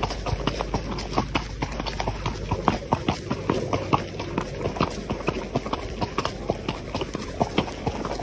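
Horse's hoofbeats on a gravel trail: a steady run of footfalls, several a second, crunching on the gravel.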